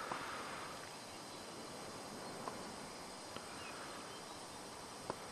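River water flowing past the bank, a faint steady rush, with a few faint clicks.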